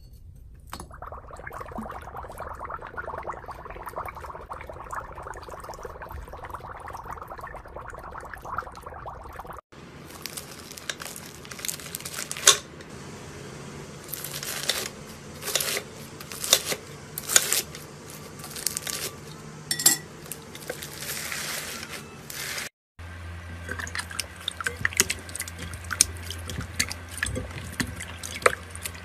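Three slime sounds in turn. First a steady watery wash from a glass bowl of water as dye drips in beside a piece of foam. Then a knife cutting through a watermelon-style slime packed with beads, giving a run of sharp crackles and pops, and finally hands squishing and kneading yellow slime in a glass bowl over a steady low hum.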